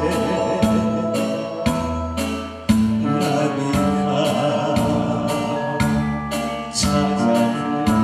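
A man singing a Korean trot song into a microphone over amplified backing music with a steady beat.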